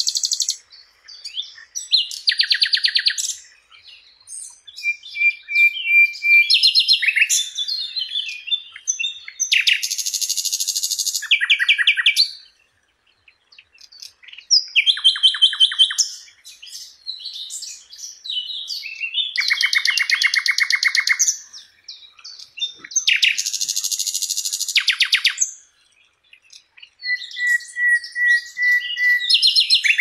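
Common nightingale singing: a run of separate loud phrases, each one to two seconds long with short pauses between them. Most are fast trills of rapidly repeated notes; a few are pure held whistles on one pitch.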